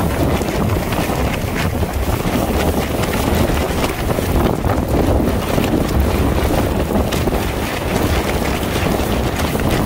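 Wind buffeting the microphone in heavy gusts over the steady rush and splash of the bow wave along the hull of a Tartan 10 sailboat driving fast while heeled over.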